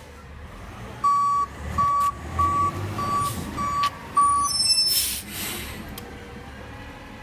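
Garbage truck's reversing alarm beeping six times at a steady pace over the low running of the truck's engine, followed by a brief hiss about five seconds in.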